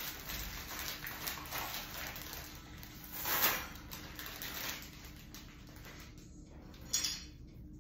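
Soft rustling and rubbing of hands working a small plastic item, with a louder rustle about three seconds in and a short knock near the end.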